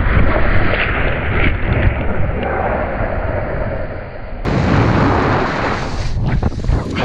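Wind rumbling over an action camera's microphone and a snowboard sliding and scraping over packed snow. The noise changes abruptly about four and a half seconds in, with a few knocks near the end.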